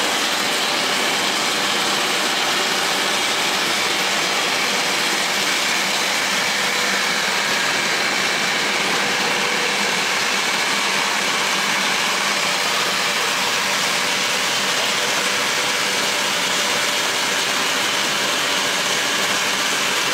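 Roasted peanut skin peeling machine running steadily, a dense, even mechanical whir with peanuts pouring through it.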